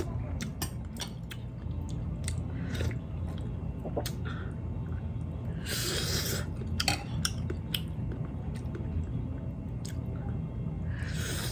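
Close-miked chewing of boiled pork, with wet mouth clicks and smacks throughout and two short louder noisy sounds, one about six seconds in and one near the end.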